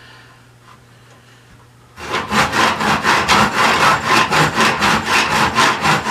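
Hand saw cutting through a wooden board. It starts about two seconds in and keeps a steady back-and-forth rhythm of about three rasping strokes a second.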